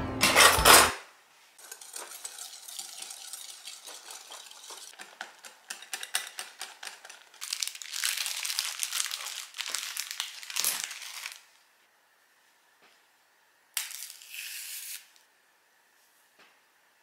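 A utensil clicking and scraping against a glass mixing bowl, likely a whisk whipping the sweetened cream, then a louder run of quick clicks and crinkling rustle. A short rustle near the end comes as bananas are handled.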